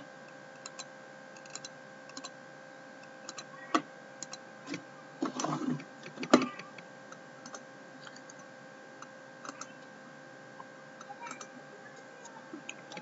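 Scattered computer mouse and keyboard clicks, faint over a steady electrical hum, with a brief rustle about five seconds in.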